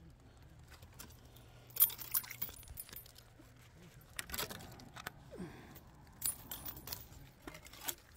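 Clusters of small, sharp clicks and light rattles, a few seconds apart, from a person stepping and handling things among dry dead branches at the water's edge.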